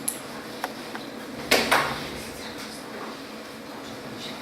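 Classroom room noise while pupils write in their notebooks: a few faint clicks, then two short, loud noises in quick succession about a second and a half in.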